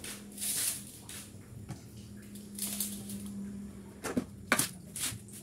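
Hands squeezing and scooping moist grated coconut in a stainless steel bowl: soft rustling squishes, with two sharp knocks a little past four seconds in, the loudest sounds.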